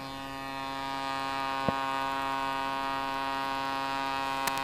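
Aerovel Flexrotor tail-sitter drone hovering in thrust-borne flight, its engine and propeller giving a steady droning hum that grows a little louder. A single sharp click comes about a third of the way in, and a few ticks near the end.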